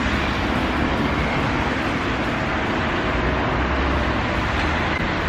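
City street traffic noise: a steady rumble and hiss of passing cars.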